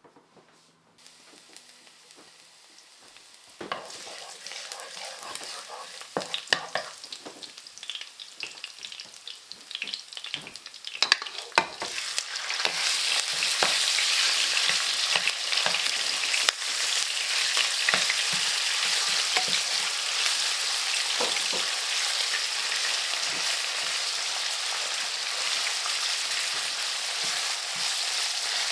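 Food frying in hot oil in a pan, with a utensil stirring and knocking against it. The sizzle starts faintly a few seconds in among sharp clicks and scrapes, then becomes much louder and steady from about twelve seconds on.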